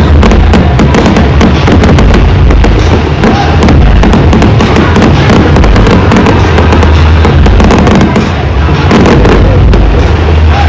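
Aerial fireworks bursting, with dense rapid crackling cracks throughout, over music with heavy bass.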